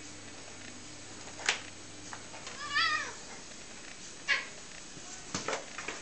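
Two cats tussling: one cat gives a single short, wavering meow about halfway through. A few sharp knocks come before and after it, loudest about a second and a half in and again near the end.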